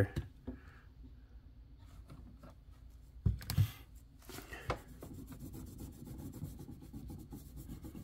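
Microfiber cloth scrubbing a stainless-steel espresso machine panel to work off softened sticker adhesive, a faint steady rubbing that sets in about four seconds in. Two short sharp sounds come just before it.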